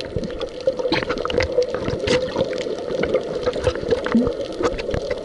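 Water gurgling and sloshing, heard underwater, with many small irregular clicks and crackles over a steady low hum.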